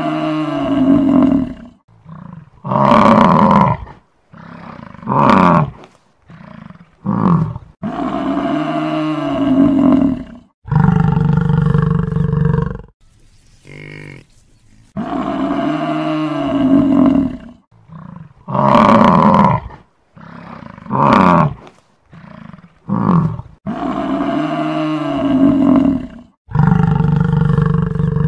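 Buffalo bellowing: a series of loud, drawn-out calls, the longest about two and a half seconds, with shorter grunts between them. The same run of calls repeats about every fifteen seconds.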